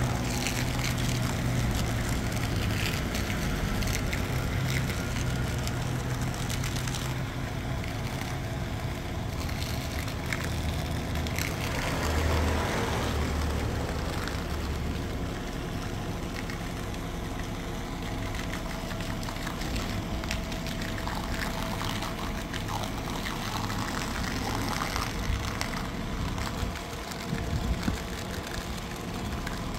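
A long-handled brush scrubbing through thick wash foam on a motorcycle, a wet, crackly squishing of suds with scattered small clicks, over a steady low hum.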